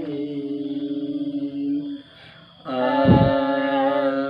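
Unaccompanied voice chanting in Quranic recitation style: one long held note breaks off about two seconds in, and after a short pause a second long held note begins. A dull thump comes just after the second note starts.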